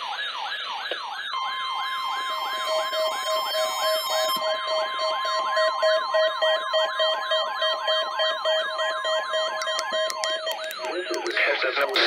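Several NOAA weather alert radios sounding their alarms at once for a Required Weekly Test: a fast warbling siren sweeping up and down about four times a second over steady tones and a pulsing beep. Near the end the alarms give way to a burst of static.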